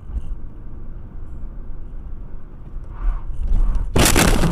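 Low road and engine rumble inside a car's cabin, then, about four seconds in, a sudden loud collision with crashing, scraping and clattering that carries on.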